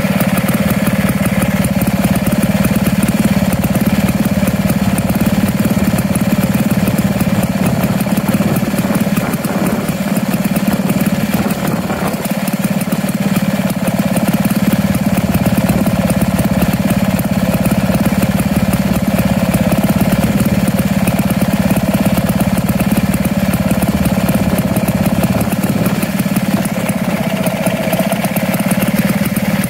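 Two-stroke Lister 'Little Lister Light' stationary engine running steadily on its first run, a fast, even firing beat.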